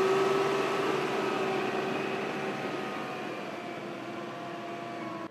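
Turbine aircraft engine running down: a loud rushing noise with a whine that slowly falls in pitch as it gradually fades.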